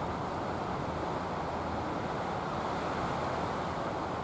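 Steady rushing seaside noise of wind and surf, even throughout with no distinct events.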